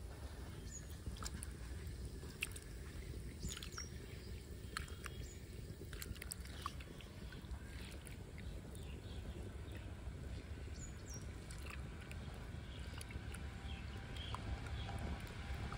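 Rice and lentils being swished and rubbed by hand in water in a small clay bowl: soft sloshing with small scattered clicks, over a steady low outdoor rumble and a few faint high chirps.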